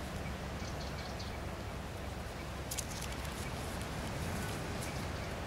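Steady low wind rumble on the microphone, with a few faint clicks about three seconds in.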